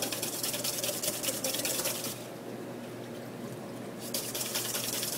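Wire whisk beating a thickened egg-yolk hollandaise base in a stainless steel bowl, with rapid, even wet strokes. It pauses about two seconds in and starts again about four seconds in.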